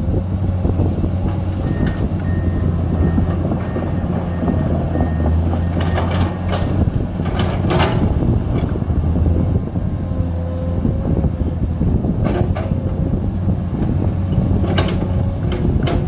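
Komatsu PC210 hydraulic excavator's diesel engine running steadily under working load with a low drone and a hydraulic whine, while its bucket is worked into a dirt pile. A few sharp knocks come about midway and again near the end.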